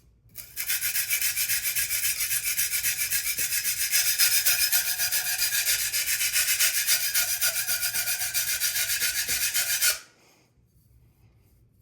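Knife blade scraped back and forth on a coarse 220-grit whetstone in quick strokes, about five a second. It grinds to raise a burr along the heel of the edge and stops suddenly about ten seconds in.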